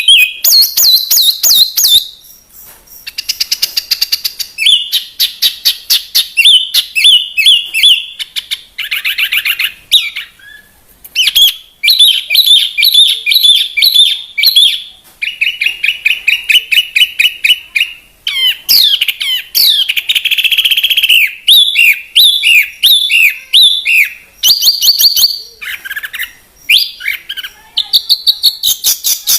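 A songbird singing a long, varied masteran song: fast trills and rapid runs of repeated high chirps, with brief pauses between phrases.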